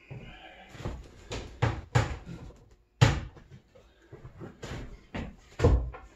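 Irregular wooden knocks and thuds, about eight of them, the loudest about three seconds in, as interlocking timber-frame joints of a wooden table base are pushed and knocked down into place by hand.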